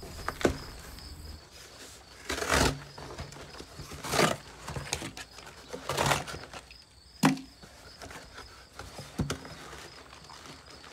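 Cardboard shipping box being cut open with a box cutter and its flaps pulled back: irregular scraping and crackling cardboard sounds, about six short bursts a second or two apart.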